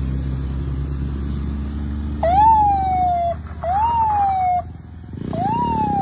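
A man imitating a police siren with his voice through a handheld megaphone: three whoops, each a quick rise in pitch and then a slower falling wail, starting about two seconds in.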